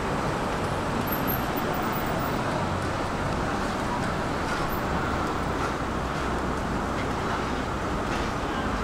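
Steady running noise heard inside a City Elephant double-deck electric train: an even rumble with a low hum beneath, with no change in level.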